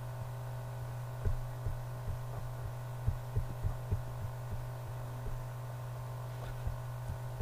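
Steady low electrical hum with a scattering of soft, irregularly spaced low thumps.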